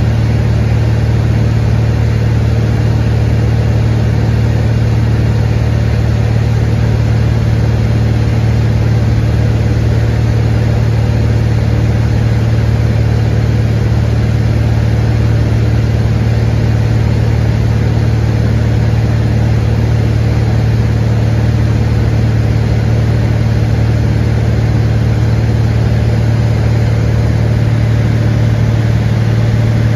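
Cessna 182 Skylane's six-cylinder piston engine and propeller droning steadily at cruise power, heard from inside the cabin as a constant deep hum that does not change in pitch.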